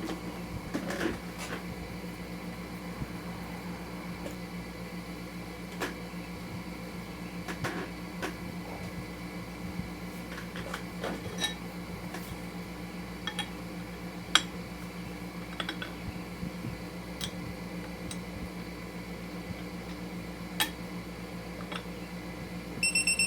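Scattered light clicks and metal knocks of hand tools over a steady low hum, as the alternator rotor bolt is torqued down. A short run of high electronic beeps near the end.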